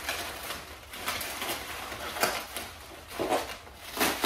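Plastic bubble wrap rustling and crinkling as it is handled and pulled apart, in uneven surges that get louder toward the end.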